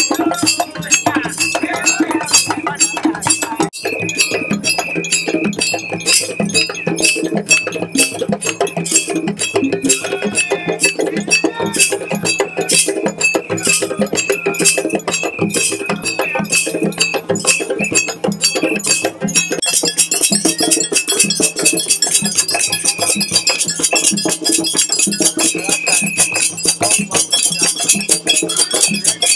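Traditional Gambian percussion: hand drums played with a ringing metal bell part in a steady, driving beat of about two strokes a second. A brighter, denser metallic layer joins about two-thirds of the way through.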